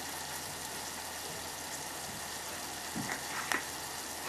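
Chopped onion caramelizing in olive oil in a saucepan, a steady sizzle, with a couple of faint taps about three seconds in.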